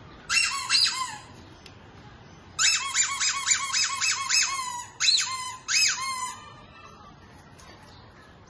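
Squeaky rubber dog-toy balls being squeezed by hand: a short run of about four high squeaks, then after a pause a quicker run of a dozen or so, each squeak swooping up and then down in pitch.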